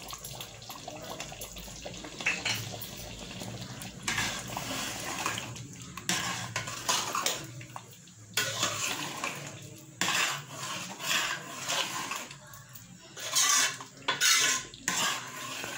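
Spatula stirring a thin potato curry in a metal pot, scraping and knocking against the pot in irregular strokes, with the liquid sloshing.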